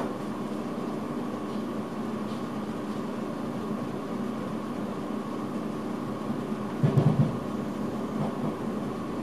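Steady running noise of an electric train heard inside the driver's cab, with a constant hum. About seven seconds in, a short cluster of low thuds as the wheels run over points.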